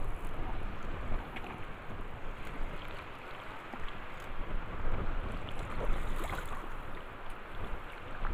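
Wind buffeting the microphone in gusts, over the wash of choppy lake water.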